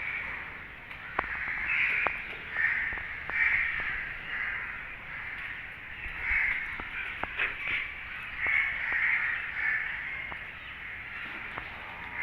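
Birds calling over and over in harsh, short caws, with faint clicks in between.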